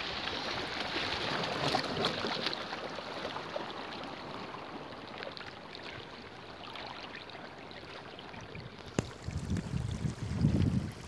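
Seawater washing and lapping over seaweed-covered shoreline rocks: a steady rush of water that eases off midway. About nine seconds in there is a sharp click, then irregular low rumbling bumps.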